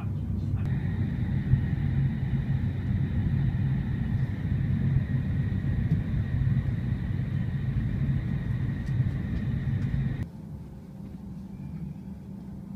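Shinkansen high-speed train running at speed, heard inside the passenger car: a heavy low rumble with a steady high whine over it. About ten seconds in it cuts off abruptly to a much quieter station platform background with a low steady hum.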